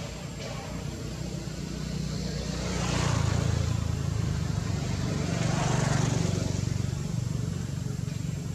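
Motor vehicle engines passing by, a low hum that swells twice, loudest about three seconds in and again about six seconds in, then fades.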